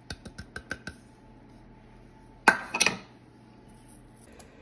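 A measuring cup tapped against the rim of a glass mixing bowl to knock out the last of the matzo meal: about six quick light taps in the first second, then two louder knocks about two and a half seconds in.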